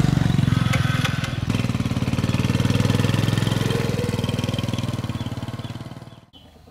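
Small motor scooter's engine running steadily close by, then fading as the scooter rides away, stopping abruptly about six seconds in.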